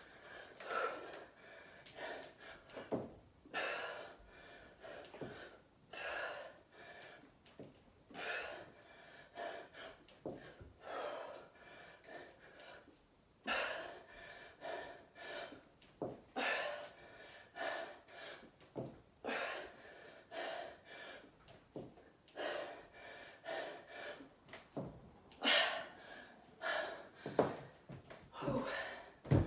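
A woman breathing hard and gasping, a sharp breath about every second, as she works through the last reps of dumbbell squats and jerks, out of breath from the effort.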